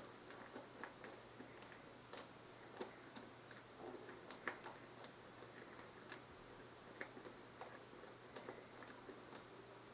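Faint, irregular clicks and light scuffing as a ferret wrestles a fabric ball toy in its pet bed, with a few louder clicks about three, four and a half and seven seconds in.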